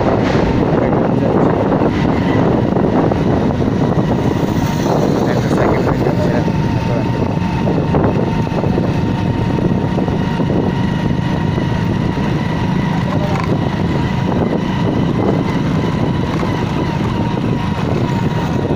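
Motorcycle engine running steadily while riding along, mixed with wind and road noise on the microphone, with a faint steady whine.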